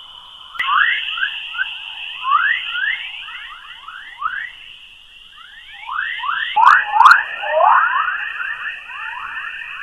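Sonified space recording of Earth's magnetic-field plasma waves, the 'Earth chorus': a rapid stream of short rising chirps, like birdsong, over a steady high hum. There are a few sharp clicks, one about half a second in and two close together around seven seconds.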